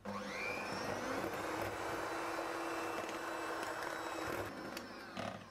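Krups electric hand mixer running at high speed, its beaters whipping egg whites and sugar into stiff meringue in a plastic bowl. The motor whine rises at the start, runs steadily, and drops away about four and a half seconds in.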